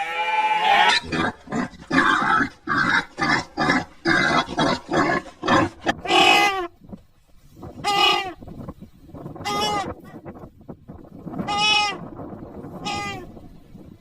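Goat bleating: a rapid run of short stuttering calls for the first few seconds, then five separate wavering bleats about a second and a half apart.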